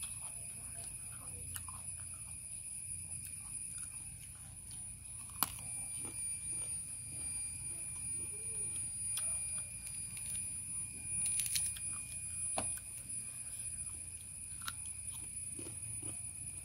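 Insects buzzing steadily at a high pitch, with faint chewing and a few light clicks of a fork and spoon.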